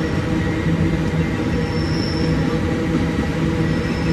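Empty iron-ore wagons rolling past on the rails: a steady, loud rumble of wheels and wagon bodies, with a faint high wheel squeal about two seconds in and again near the end.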